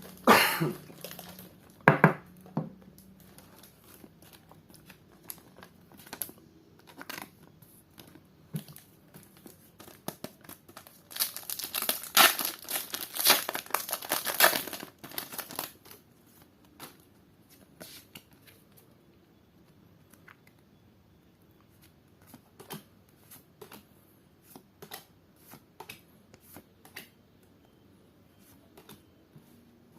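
Pokémon card booster pack wrappers being torn open and crinkled: sharp rips near the start and about two seconds in, a long stretch of crinkling in the middle, then light, scattered taps and flicks of cards being handled.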